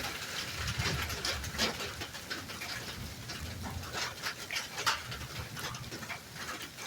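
Close-up chewing and mouth smacks of a person eating potato salad: soft irregular wet clicks.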